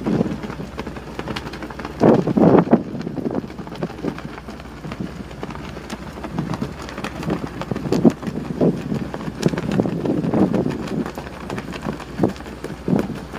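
Wind buffeting the microphone in irregular gusts, the strongest about two seconds in.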